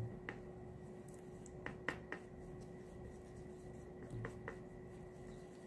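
A few light clicks and taps of a paintbrush against a plastic palette as white and red paint are stirred together into pink, some in quick pairs, over a faint steady hum.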